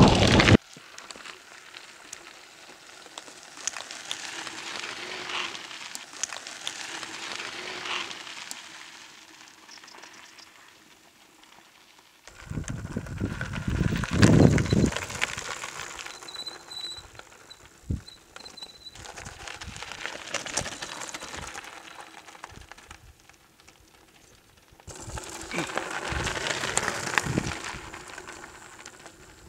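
Mountain bike tyres crunching and crackling over loose gravel and rock as riders roll past, louder about twelve seconds in and again near the end. Wind buffets the microphone in the first moment.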